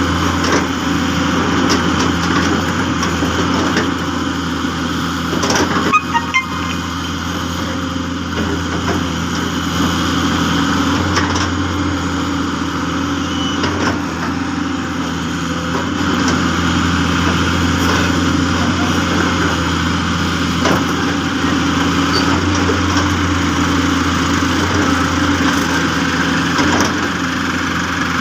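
Hyundai 200W-3 excavator's diesel engine running steadily, with a few short knocks about six seconds in.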